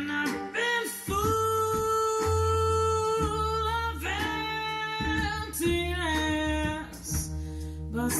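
A jazz-style song, with a singer holding long notes over guitar and bass, played back through hi-fi loudspeakers driven by a reworked Kumir-001 stereo amplifier.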